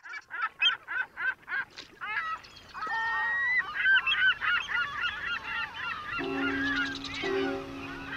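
A flock of birds calling: first a run of short, repeated calls, about three a second, then many birds calling over one another. About six seconds in, music with held chords comes in under the calls.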